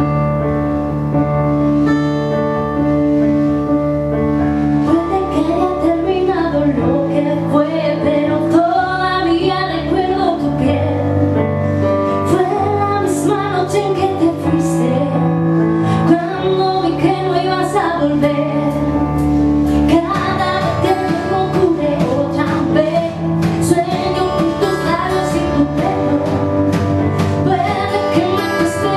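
A song playing: an instrumental opening of sustained notes, then a singer's voice comes in over the instruments about five seconds in and carries on.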